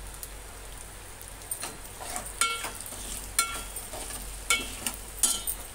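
Steel spoon stirring spiral pasta in a steel pot, scraping and clinking against the pot four times with a short metallic ring, about once a second from about two seconds in.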